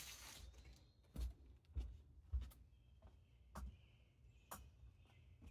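A few soft footsteps and light knocks on a wooden deck, spaced about half a second to a second apart, with a faint bird call coming in about halfway through.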